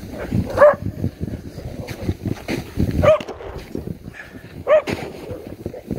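Running footsteps crunching through snow in quick succession, with three short, high-pitched yelps spaced through it.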